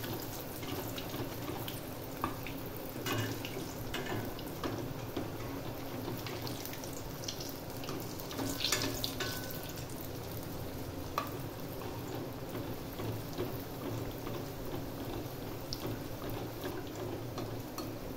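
Bread-potato rolls deep-frying in hot oil in a steel pot: a steady sizzle and bubbling with scattered crackles. A few sharper clicks come as a steel slotted spoon ladles oil over the tops of the rolls.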